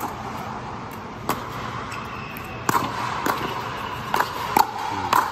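Pickleball rally: paddles striking the plastic ball, heard as about seven sharp pops spaced roughly half a second to a second and a half apart.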